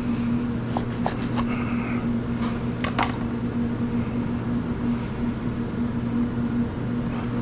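Steady low hum of a kitchen ventilation fan, with a chef's knife cutting through a soft hoagie roll on a plastic cutting board: a few light clicks about a second in and a sharper knock of the blade on the board about three seconds in.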